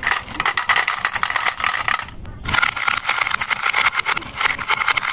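Marbles rolling down a wooden marble-run track in a rapid, continuous clatter of clicks as they knock against each other and the wooden rails, with a brief lull about two seconds in.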